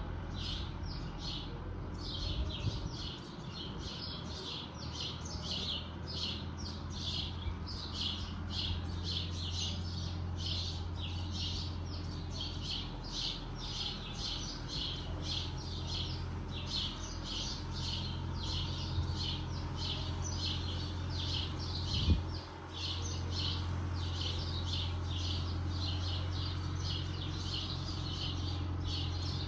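Steady low hum of the distant Fiat 766 DT tractor running with its mowing arm, under a continuous run of high, short chirps repeating about twice a second. A single sharp knock about two-thirds of the way through.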